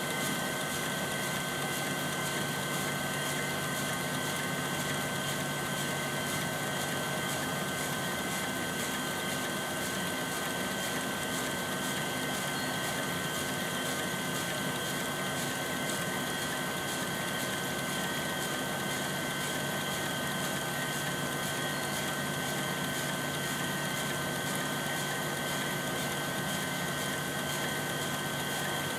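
Valley center-pivot irrigation system running: a steady hiss of water spraying from its sprinkler drops onto corn, with an even hum of several steady tones over it.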